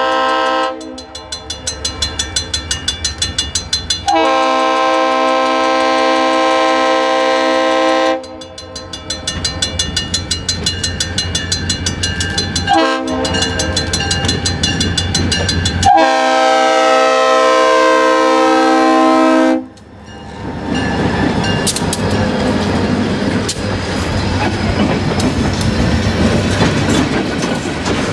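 Freight train's air horn sounding several long blasts as it approaches a grade crossing, with a crossing bell ringing rapidly in the gaps between blasts. About twenty seconds in, the horn stops and the train passes close by, rumbling with its wheels clacking over the rails.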